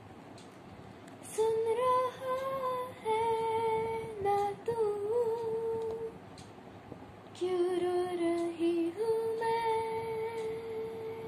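A girl's voice singing a slow, wordless melody in long held notes. It comes in several phrases with short breaks between them.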